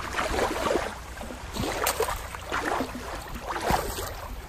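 Shallow water lapping and splashing over rock, with scattered small splashes and drips.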